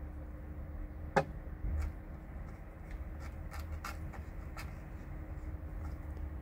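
A cat licking and eating wet food in sauce from a plastic bowl: a handful of small, irregular wet clicks of tongue and mouth, one sharper click about a second in. A steady low background rumble runs underneath.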